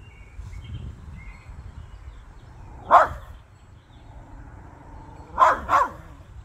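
Small pug-type dog giving three short barks: one about three seconds in, then a quick double bark near the end. They are wary warning barks at an unfamiliar object.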